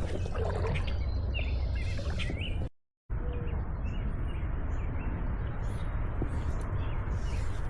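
Small birds chirping over a steady low outdoor rumble, with the sound cutting out for a moment about three seconds in.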